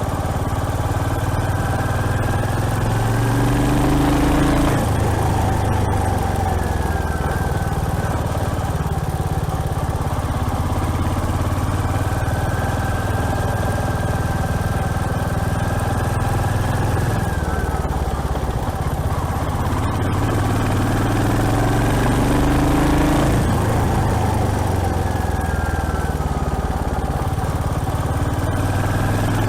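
Royal Enfield Hunter 350's single-cylinder engine running on the move. The engine note rises twice, about four seconds in and again about twenty-two seconds in, each time dropping off abruptly as at a gear change.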